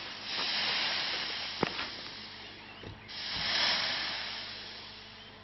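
Hissing rushes from a landed hot-air balloon being deflated: two swells, each starting sharply and fading away over about two seconds, with a faint knock between them.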